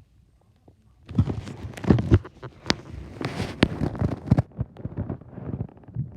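Stomach growling: irregular gurgles and rumbles mixed with sharp clicks, starting about a second in after a near-quiet start.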